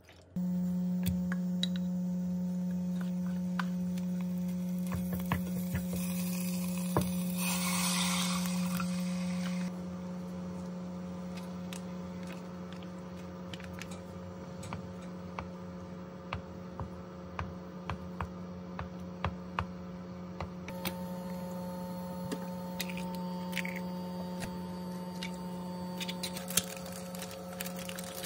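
Steady electric hum of an induction cooktop heating a pot, a single low tone that drops a little about ten seconds in. Scattered light clicks and a brief hiss sound over it.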